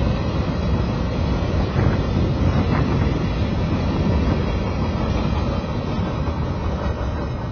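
Freight train cars rolling past on the track, a steady low rumble mixed with wind on the microphone, easing a little near the end as the last cars go by.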